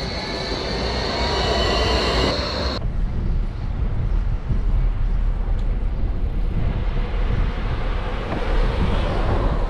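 A steady high whine with several gliding tones over a rushing noise, cut off suddenly about three seconds in. After that, a low rumble and wind rushing over the microphone of a moving bicycle.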